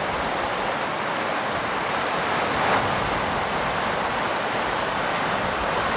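Steady rush of ocean surf breaking and washing around sea rocks.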